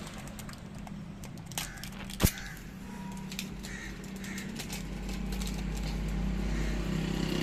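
A vehicle engine running steadily, growing louder through the second half, with a single sharp click about two seconds in.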